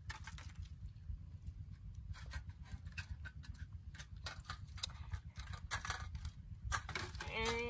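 Plastic mesh basket traps being handled, giving irregular light clicks and knocks, over a steady low rumble. A brief vocal sound comes near the end.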